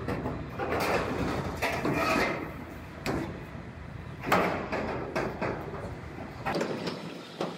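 A new sheet-metal Chevy Silverado bedside panel being slid and bumped into position against the truck bed, with scraping and clunking of metal on metal. There is a sharp knock about four seconds in.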